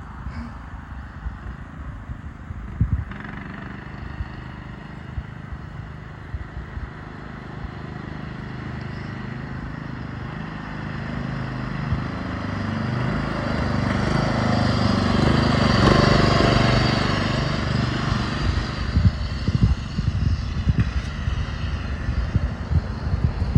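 Craftsman riding lawn mower's engine running as the tractor is driven, growing louder to a peak about two-thirds of the way through and then fading.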